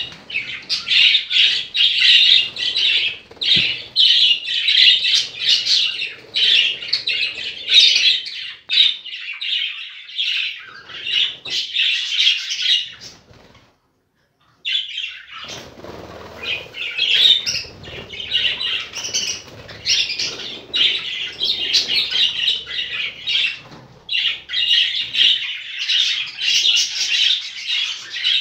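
Budgerigars chattering and squawking in a dense, continuous high-pitched warble, which drops out for about a second just before the middle and then resumes.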